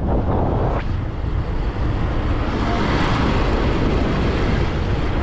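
Steady wind rush and road noise of a vehicle driving across a bridge, heard from inside the moving vehicle, swelling slightly about halfway through.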